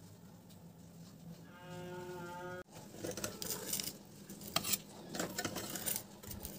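Clattering and sharp taps as a grilled sandwich is lifted from a sandwich maker and set down on a ceramic plate, the loudest knocks between about two and four seconds after a sudden cut. Before the cut, a low steady hum with a brief humming tone lasting about a second.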